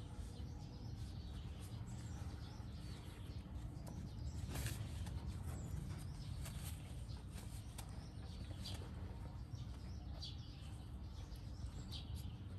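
Rural outdoor ambience: a steady low rumble with scattered short, high chirps from birds.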